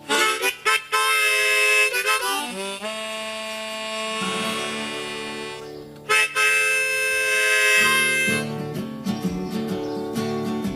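Harmonica playing a blues intro: long held chords with a few sliding notes, breaking off and starting again about halfway through. Acoustic guitar strumming joins in a steady rhythm near the end.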